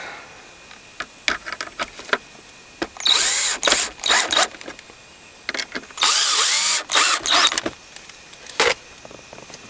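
Power drill driving screws into a plastic centre console: about four short runs of the motor, each rising and falling in pitch, with clicks and taps between them.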